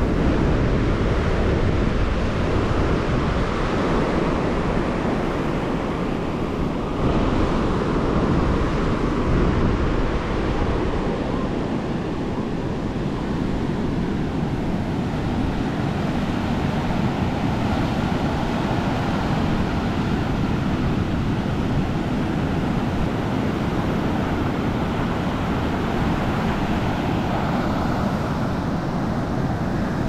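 Ocean surf breaking and washing up a sandy beach, with wind noise on the microphone.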